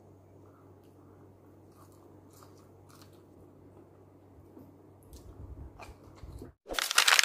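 Faint close-up eating sounds: a person chewing and licking food off her fingers, with small clicks and crunches. Near the end a sudden loud burst of noise, lasting under a second, cuts in.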